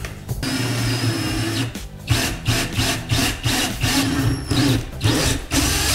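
Ryobi cordless drill boring a hole into a PVC pipe fitting. It runs steadily for about a second, then in short, quick bursts of the trigger, about three a second.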